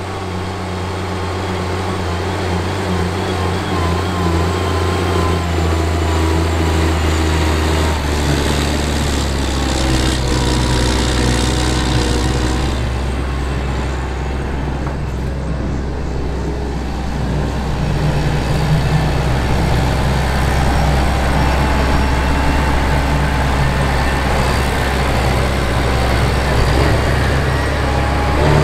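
Steiger SM-325 Panther IV four-wheel-drive tractor's 11-litre Komatsu turbocharged, intercooled diesel running steadily under load while pulling a chisel plow through the soil. The deep engine note grows louder over the first few seconds.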